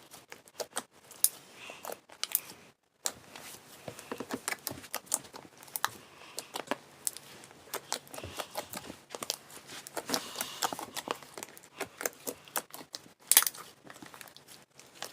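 Two slimes, one of them a fluffy cloud slime, being kneaded and mixed together by hand: irregular sticky squishes, small pops and crackles.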